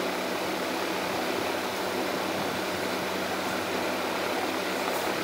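Steady whooshing background noise with a low hum underneath, such as a running room fan makes.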